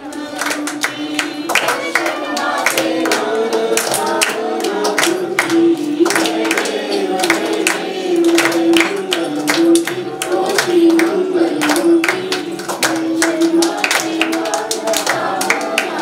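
Voices singing a Hindu devotional aarti together, with hands clapping along to the beat.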